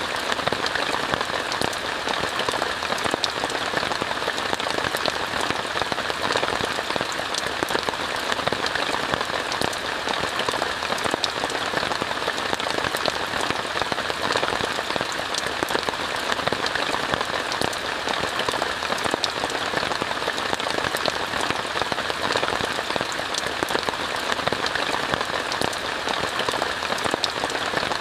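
Steady rain falling on a tent heard from inside, a dense continuous hiss dotted with countless small drop ticks.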